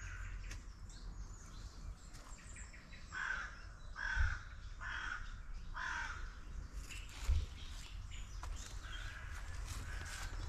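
A crow cawing four times in quick succession, harsh calls about a second apart, with fainter bird calls later on. A steady low rumble runs underneath, broken by two brief dull thumps.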